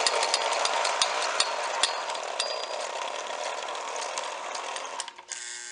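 Lionel 2020 steam turbine toy locomotive's worm-drive motor running under load, hauling a heavy train along three-rail track: a steady whine with a rush of clicking from the wheels on the rails. It runs smoothly, without lurching, now that the rear drive wheels have been pressed closer together so their flanges no longer rub the next wheel set.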